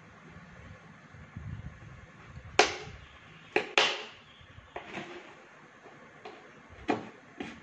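Thin plastic of a large clear bottle crackling and snapping as it is cut open and pressed by hand. The cracks come at irregular moments, and the loudest is about two and a half seconds in.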